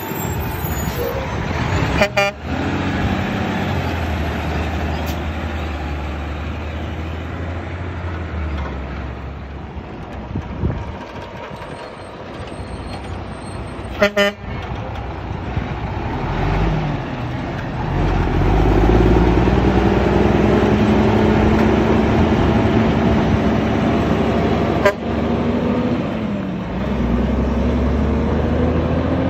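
Diesel engines of concrete mixer trucks driving past one after another, with a low steady rumble. In the second half an engine note climbs as a truck pulls away. Three brief sharp clicks come along the way.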